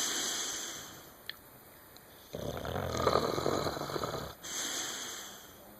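Slow, heavy snoring: one loud rasping snore about two seconds in, between two softer, hissing breaths.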